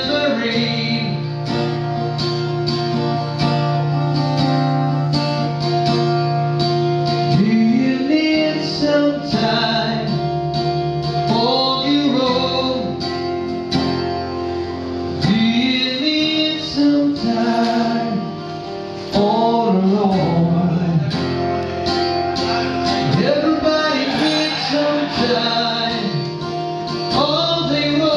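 A man singing into a microphone while strumming an acoustic guitar, live. The chords run on alone at first, and the singing comes in after a few seconds in several phrases.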